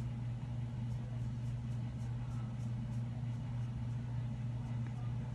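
Steady low hum, with faint, quick soft scratches of a spoolie brush being stroked through an eyebrow, several a second, stopping near the end.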